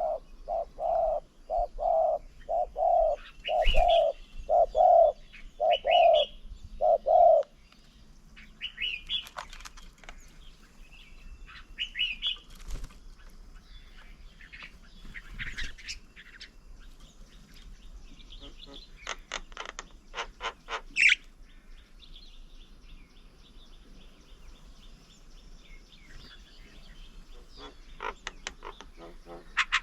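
Birds calling: one bird gives a run of about a dozen low, hollow notes, one every half second or so, then stops about seven seconds in; after that, scattered high chirps and a rapid chattering call from other birds.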